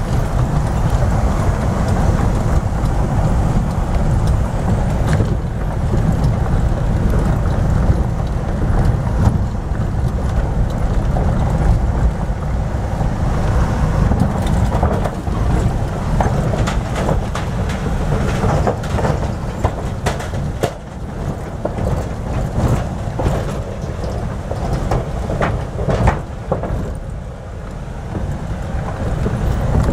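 Vehicle driving over a rough gravel and dirt road, heard from on board: a steady low engine and road rumble throughout. Frequent knocks and rattles come in the middle stretch, while it bumps over the road and a plank-decked steel bridge.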